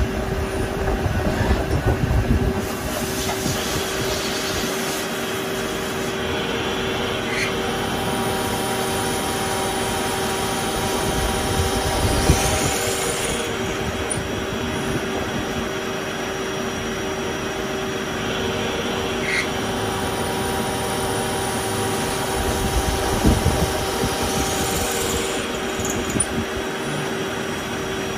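Multi-tasking CNC lathe running while machining a metal part: a steady hum of motors and spindle with cutting noise over it. It gets louder and rougher about two seconds in, around twelve seconds and around twenty-three seconds.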